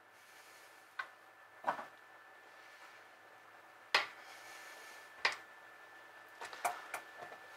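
Sharp metallic clicks and knocks as a pipe flaring tool's bar and yoke are handled in a bench vise and a small metal pipe is fitted into it. The clicks come one to two seconds apart, with a quick cluster near the end.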